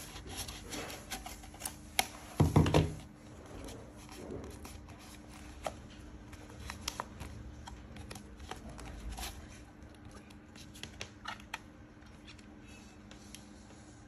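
Paper rustling and a plastic cup being handled, with scattered light clicks and snips as scissors trim paper around the cup. A louder knock comes about two and a half seconds in.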